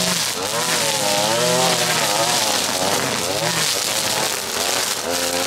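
String trimmer cutting tall grass, its engine pitch rising and falling over and over as it works, over a steady high hiss.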